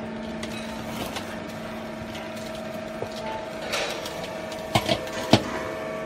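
Small vertical waste baler's hydraulic pump motor running with a steady hum while the machine compresses waste, with three sharp knocks close together about five seconds in.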